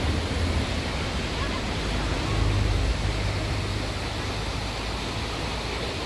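Steady rush of a fast mountain river over rocks, with a low rumble underneath.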